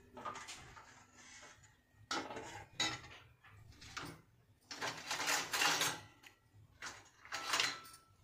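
Steel ladle scraping and clinking against the pressure cooker and a steel plate while curry is served: a string of short scrapes and clatters, the longest about five to six seconds in.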